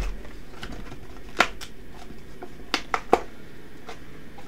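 Cardboard booster box lid being pried open and lifted by hand: a few sharp clicks and scrapes of cardboard, one about a second and a half in and a quick cluster of three near three seconds.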